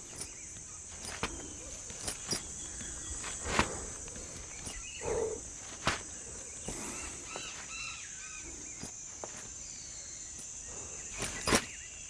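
Rainforest ambience: a steady high-pitched insect drone, with scattered knocks and scuffs of a climber's feet and hands against a tree trunk and a few short bird calls about two-thirds of the way through.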